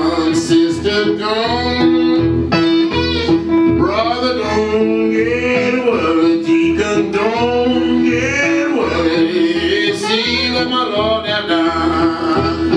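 A man singing a blues song while strumming and picking an acoustic guitar. A steady low guitar note repeats under the voice.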